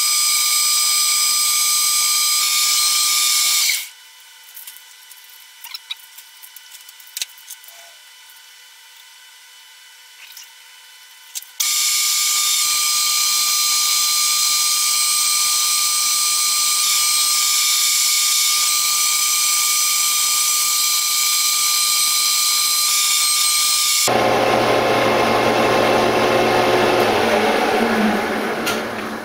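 Metal lathe turning a 1144 stressproof steel bar, a loud steady high-pitched whine with a held tone. About four seconds in it cuts off abruptly to a quiet stretch of small clicks, and it returns at about twelve seconds. At about 24 seconds it changes to a lower running sound that dies away near the end as the chuck spins down.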